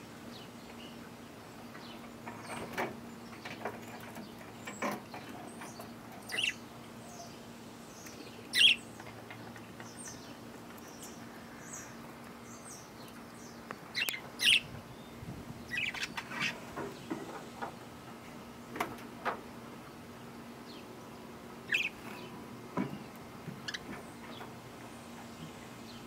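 Budgerigars giving scattered short chirps, the loudest about nine and fifteen seconds in, over a faint steady low hum.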